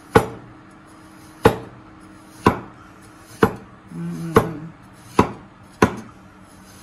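Rectangular Chinese cleaver slicing young ginger lengthwise on an end-grain wooden chopping board: seven sharp knocks of the blade on the board, about one a second.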